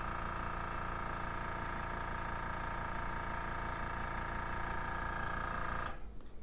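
Airbrush air compressor running with a steady motor hum after the spraying stops, then shutting off suddenly about six seconds in.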